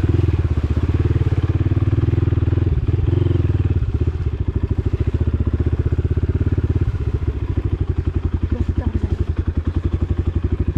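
Dirt bike engine running steadily at low revs under a slow ride over a muddy, rutted track, easing off slightly about four seconds in.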